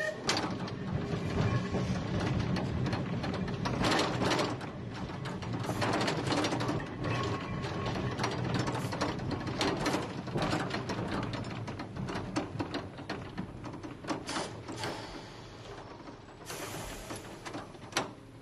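Manx Electric Railway tram car No. 1 under way: a low rumble from the running gear on the rails, with irregular clicks and knocks as the controller handle is worked through its notches. It grows quieter near the end, and a sharp click comes just before the end.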